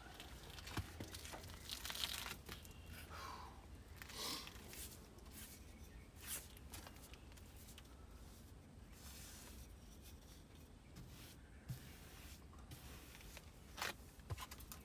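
Faint, irregular brushing and scraping strokes: a paintbrush working paint onto wooden soffit boards.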